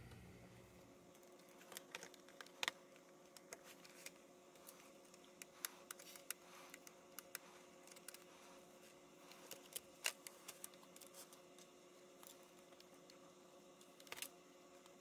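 Faint scattered clicks and taps of a laptop's plastic case, motherboard and ribbon cables being handled, over a faint steady hum.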